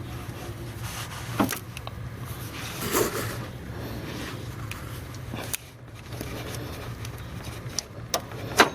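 Scattered clicks and scrapes as the serpentine belt of an Acura TL is worked off its pulleys, with the tensioner held back by a wrench, over a steady low hum. A sharp click near the end is the loudest.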